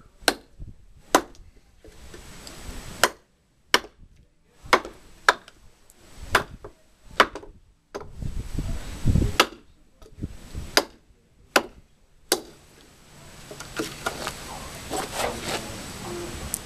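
Heavy hand-forged big knife chopping into a piece of firewood: about fourteen sharp, irregularly spaced strikes of the blade biting into the wood. Near the end the strikes stop and softer knocking and rustling follow as the split wood is handled.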